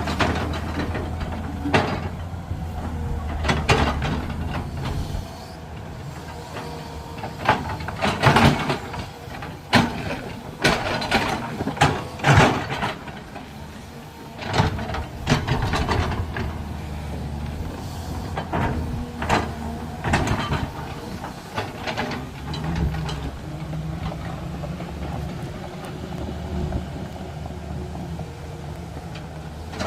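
Heavy diesel machinery running steadily at a bore-pile drilling site, with a series of sharp knocks and clanks, loudest and most frequent in the first half.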